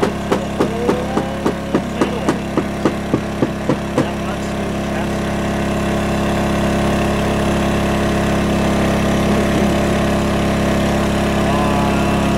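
Rapid knife chops on a cutting board, about three or four a second, as rabbit meat is cut up; the chopping stops about four seconds in. A small engine hums steadily underneath.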